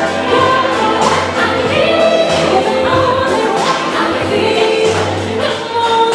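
Music with a choir of voices singing over accompaniment.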